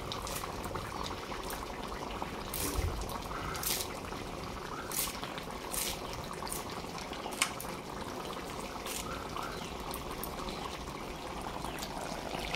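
Pork curry boiling in a large aluminium kadai: a steady bubbling with scattered sharp pops.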